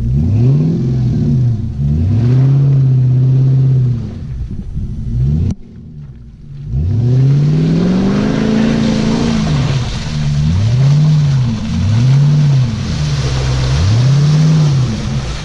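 Jeep Grand Cherokee's 4.7 L V8 through a Flowmaster 40 Series exhaust, revved up and down again and again. There is one long rev, a brief drop about six seconds in, then a big rev and three quicker surges near the end.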